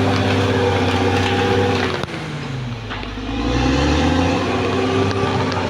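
Diesel engine of a Caterpillar D6R XL crawler bulldozer running under load; its pitch and level drop about two seconds in, then climb back up, with a few knocks over it.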